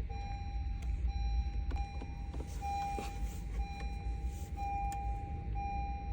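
An electronic beep tone repeating about once a second, each beep held almost to the next, over a low steady rumble.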